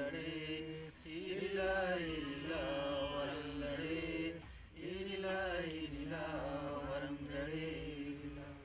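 Voices chanting a devotional prayer in long, held phrases, with short pauses about a second in and again near the middle.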